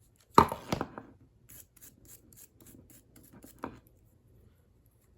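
A brush scrubbing Smith & Wesson steel handcuffs in quick short strokes, about four or five a second. There is a louder metallic clatter of the cuffs near the start and a single sharp click about three and a half seconds in.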